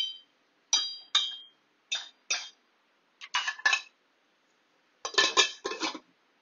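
Steel ladle knocking against an aluminium cooking pot a few times, sharp metallic clinks with a brief ring, then an aluminium lid clattering as it is set on the pot and settled in place.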